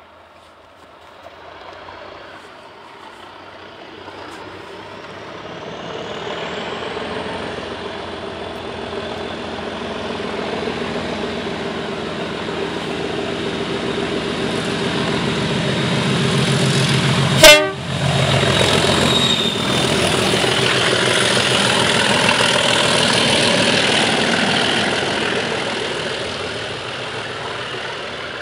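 Class 37 diesel locomotives ("tractors") working hard as a train approaches and passes, their engine sound building steadily over about seventeen seconds and staying loud before easing slightly near the end. A single very short horn toot comes just after the locomotive draws level.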